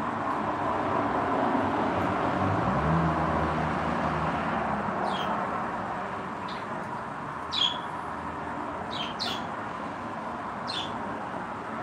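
Small caged pet birds giving a handful of short, sharp chirps in the second half, one louder than the rest, over a steady rushing background noise that is louder in the first few seconds.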